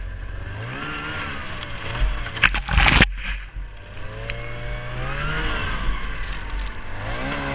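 Arctic Cat 440 snowmobile's two-stroke engine revving up and falling back three times. A loud rushing burst about two to three seconds in cuts off suddenly.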